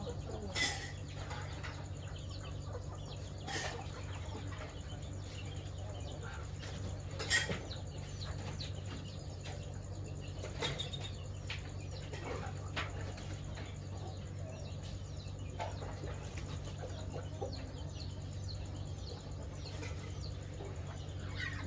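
Chickens with their young: faint, short, high chirps, and now and then a sharp flap or knock, the strongest about seven seconds in, over a steady low hum.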